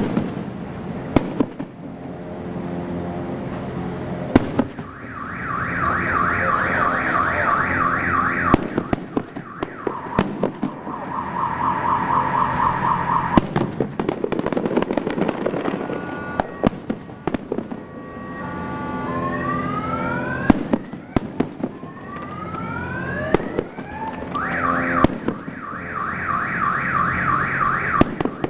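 Fireworks display: shells bursting with sharp bangs, mixed with fast warbling shrieks and several rising whistles from whistling fireworks.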